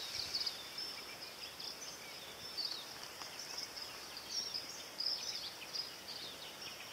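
Outdoor riverside ambience: many small birds chirping and twittering constantly in high, quick notes over a faint steady hiss.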